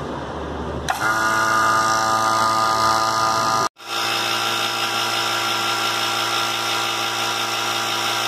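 Electric refrigeration vacuum pump running steadily with an even mechanical hum, evacuating a freezer's sealed refrigerant system to draw out air and moisture. It starts abruptly about a second in, cuts out for a moment near the middle, then runs on steadily.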